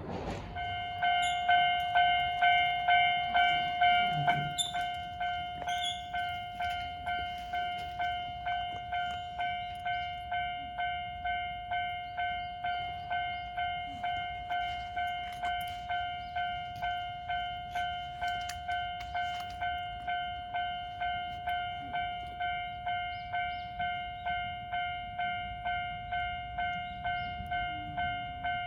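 Japanese level-crossing warning bell ringing, an electronic clanging chime repeating about twice a second. It starts about half a second in and is loudest for the first few seconds before settling to a steady level.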